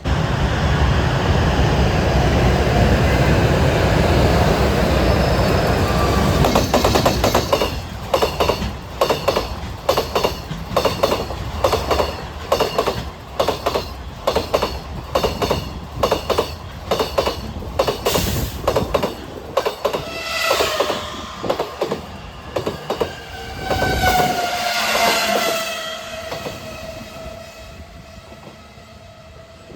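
A freight train passing at speed. It opens with a heavy rumble, then a fast, even run of wheel clacks over the rail joints as the wagons go by. Near the end a falling whine fades out with the train.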